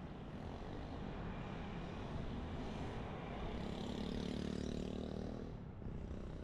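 Street traffic: a motor vehicle's engine passes close by, building to its loudest about four seconds in and fading shortly before the end, over a steady low rumble.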